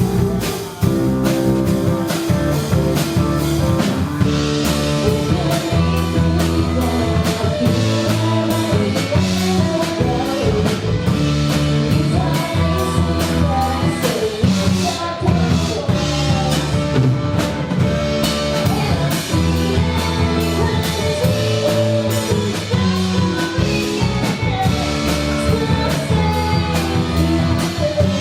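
Live rock band playing loud, with electric guitar, bass, drum kit and some singing.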